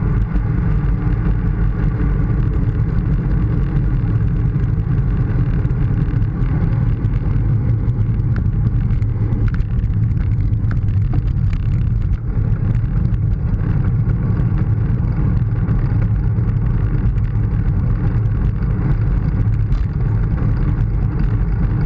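Steady wind rush and rumble on a handlebar-mounted GoPro's microphone while a road bicycle rolls along asphalt, with tyre noise underneath.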